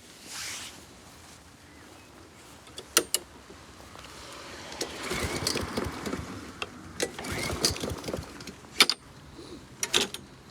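A stalled lawn mower being cranked twice, each try a rattling whir of about a second, without the engine catching. Sharp clicks and knocks come before and after the attempts.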